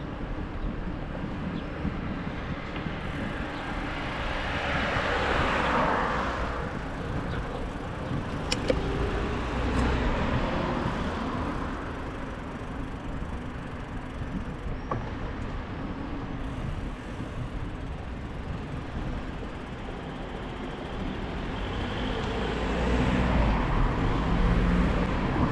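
City street traffic: cars passing, swelling up about five seconds in and again near the end, over a steady low rumble. There is one sharp click a little after eight seconds.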